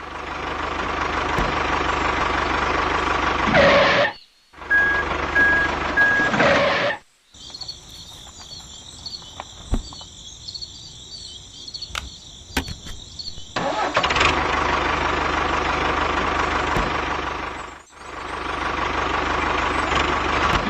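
Engine-like running sound, rising as it starts and then holding steady, broken off abruptly by several hard cuts. A quieter stretch with a high hiss sits in the middle.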